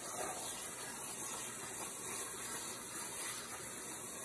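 CNC plasma cutter torch cutting through steel plate: a steady hiss.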